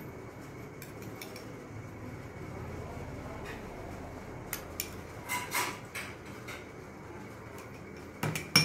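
Metal spoon clinking against small glass bowls while chopped onion is spooned onto the chaat: a few light clinks in the middle, and the loudest pair of clinks near the end as the spoon goes back to the bowls. Steady low background noise underneath.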